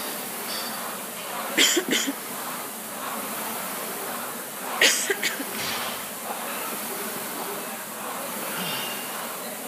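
Air-resistance rowing machine's fan flywheel whirring steadily as it is rowed hard, with two short bursts of sharp noise, one about one and a half seconds in and one about five seconds in.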